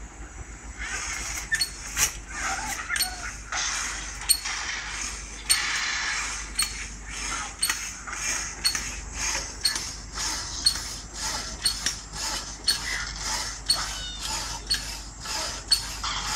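Pedal-powered hacksaw machine sawing a wooden rod held in a bench vice. The blade rasps back and forth in an even rhythm, about one stroke cycle a second, with a sharp click from the mechanism on each stroke.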